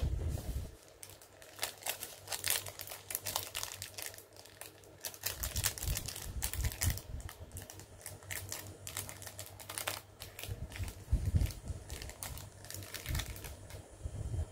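Crinkly plastic packaging being handled, making runs of quick crackles and clicks, with a few dull bumps along the way.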